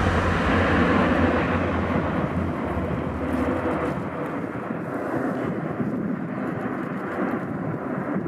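Airbus A380's four Rolls-Royce Trent 900 turbofans rumbling as the jet climbs away, the noise fading steadily and its deepest rumble dying out about halfway through.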